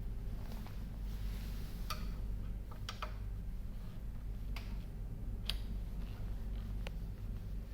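Scattered light clicks and taps of tools and plastic parts being handled while a laser printer is taken apart, about five of them spread over a few seconds, over a steady low hum.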